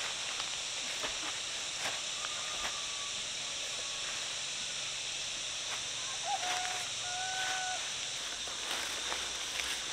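Outdoor rural ambience: a steady high-pitched hiss, with a few short bird calls a little after the middle and light rustling clicks.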